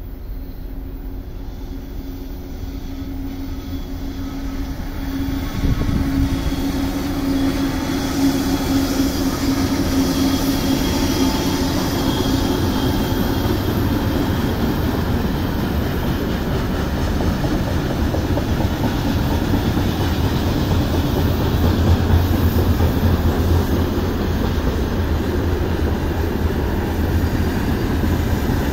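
A VL10U electric locomotive and its freight train passing. A steady hum grows louder as the train approaches, and from about five seconds in the wagons' wheels rumble and clatter continuously along the rails.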